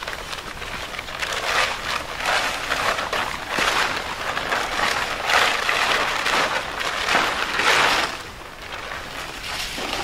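Blue plastic tarp crinkling and rustling as it is unfolded and shaken out, in waves that swell and fade. It is loudest past the middle and quieter after about eight seconds.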